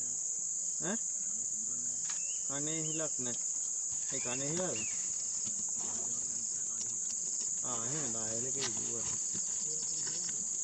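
A dense insect chorus making a steady, unbroken high-pitched drone. Quiet human voices murmur briefly three times over it.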